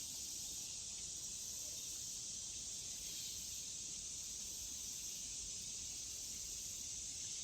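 Steady high-pitched chorus of insects in summer woods, with a still higher buzz that swells and fades about once a second.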